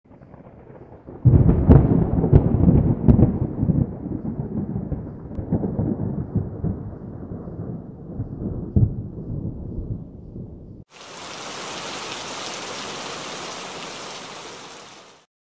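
Thunder: a sharp crack a little over a second in opens a low rumble with a few more cracks, slowly dying away. It cuts off abruptly and is followed by a steady, rain-like hiss for about four seconds.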